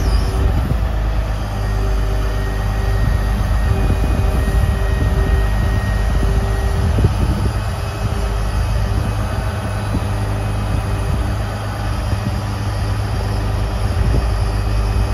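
Cat C15 (6NZ) diesel of a grapple truck idling steadily, driving the hydraulic piston pump that works the Palfinger M13A loader as it lifts a concrete block. A steady hum sits over the low engine rumble, with a single knock about seven seconds in.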